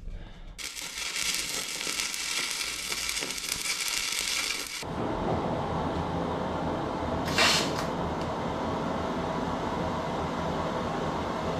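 Welding arc crackling and hissing steadily, its tone changing abruptly about five seconds in, with a brief sharper burst about halfway through.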